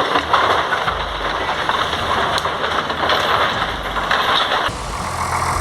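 Heavy vehicle engine running under a dense, noisy rumble. About five seconds in, it cuts abruptly to another engine idling steadily.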